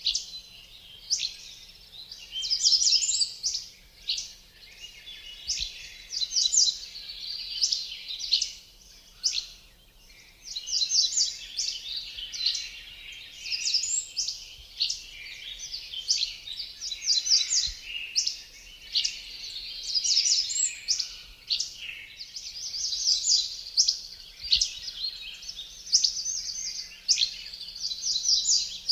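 A chorus of songbirds: many quick overlapping chirps and trills, going on without a break.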